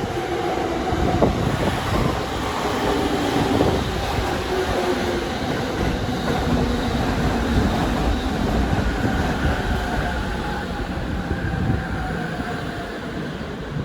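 Chuo-Sobu Line local electric train running by, with a steady rumble of wheels on rail and a few whining tones that drift slightly in pitch; it eases off a little near the end.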